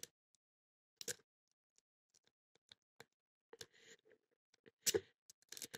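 Sparse, faint metallic clicks of a lock pick rake working the pin stack inside an Abus 54-series pin-tumbler padlock, with a cluster of louder clicks about five seconds in.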